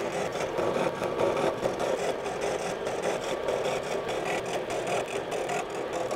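Steinel SH4 horizontal milling machine cutting metal at slow spindle speed: a steady cutting noise with fast ticking from the teeth of a cutter head that is no longer sharp, over the hum of the motor and gearbox.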